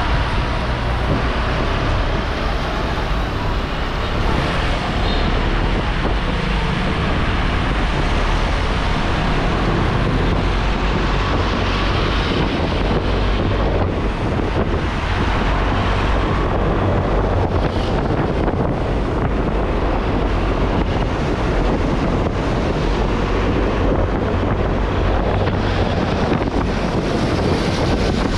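Wind buffeting the microphone of a moving motorbike, over the steady running of its engine and the rush of the tyres on the road.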